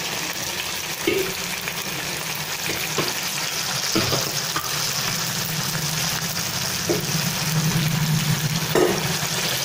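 Vegetable Manchurian balls deep-frying in hot oil in a pan, a steady sizzle. A few brief sounds break in as more balls are dropped into the oil.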